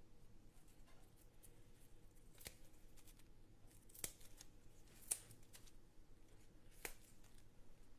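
A slotted spatula clicking against a flat non-stick griddle as small pancakes are turned: four short, sharp ticks spread over several seconds, over a faint low hiss.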